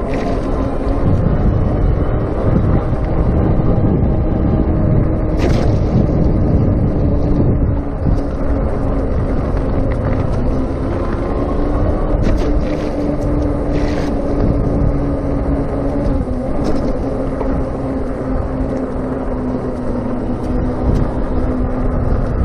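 Wind buffeting the microphone of a chest-mounted action camera while riding an electric bicycle, with a steady mid-pitched hum that shifts slightly in pitch. A few brief sharp rattles or clicks come through the ride noise.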